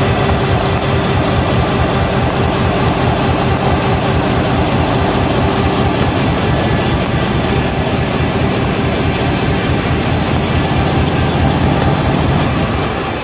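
Flexo printer slotter die cutter running at production speed, its rollers and vacuum transfer making a loud steady mechanical noise with a fast even rhythm as corrugated box blanks are fed through and slap onto the delivery pile.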